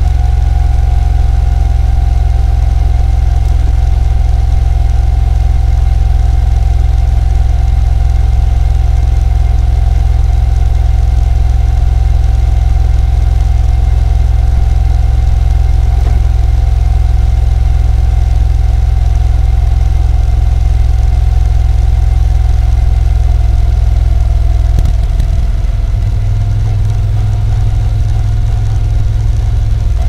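Moto Guzzi V7 Special's 853 cc air-cooled V-twin running steadily, with a loud low engine note and a steady higher tone above it. The low note changes about 25 seconds in.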